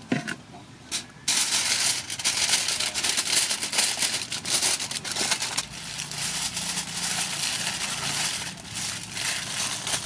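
Aluminium foil crinkling and rustling as it is folded and pressed by hand around a whole fish. It starts abruptly about a second in and goes on in uneven crackles.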